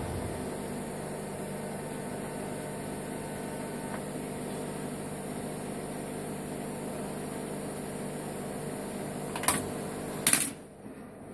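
Steady electrical hum of a TIG welding machine, with several steady tones, after the arc has gone out. Near the end come two sharp knocks less than a second apart as the pipe-and-flange workpiece in the vise is handled.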